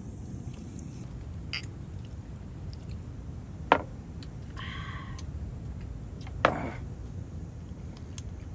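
Tableware knocking on a wooden camp table, with two sharper knocks about a third of the way in and again past the middle, over a steady low background rumble.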